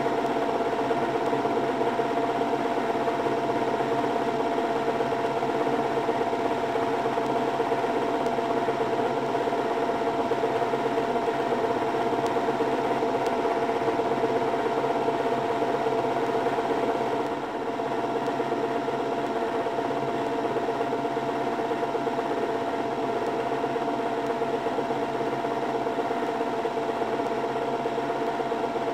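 Märklin H0 model trains running around the layout: the steady hum and whir of their small electric motors and the wheels on the track, dipping slightly about halfway through.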